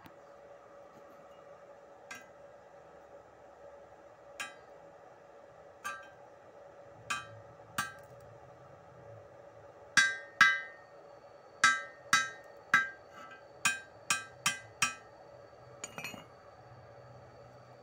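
Steel chipping hammer knocking slag off stick (SMAW) weld beads on a steel bar. Each strike is a sharp metallic clink with a short ring. The first few are light and spaced out; from about ten seconds in they come quicker and louder, about a dozen in a row.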